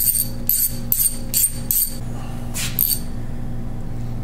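Hand socket ratchet clicking in short back-strokes, about two a second over the first three seconds, as it runs a drain plug into the bottom of a Western snowplow pump case. A steady low hum sits underneath.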